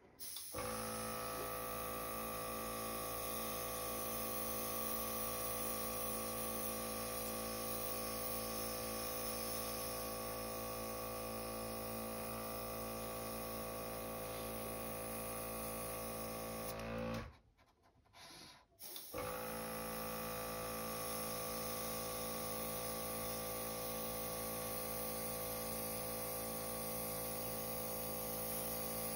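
Small airbrush compressor running with a steady hum and a hiss of air through the airbrush. It cuts out suddenly about 17 seconds in and starts again about two seconds later.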